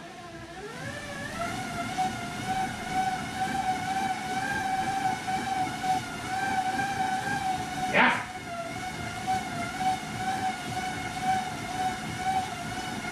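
Road bike tyres spinning on a set of cycling rollers, giving a steady whine from the roller drums. The whine rises in pitch over the first second or so as the rollers speed up, then holds with a slight waver. A single sharp knock about eight seconds in.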